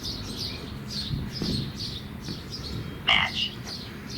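Small birds chirping over and over in quick, short, high falling notes, with one louder, sharper sound about three seconds in.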